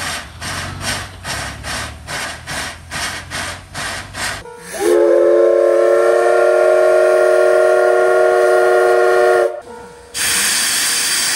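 Steam locomotive chuffing rhythmically, about three beats a second. About four and a half seconds in, its steam whistle sounds one long chord-like blast that slides up slightly as it starts and stops abruptly after about five seconds. Near the end, a loud steady hiss of steam blowing from the cylinder drain cocks.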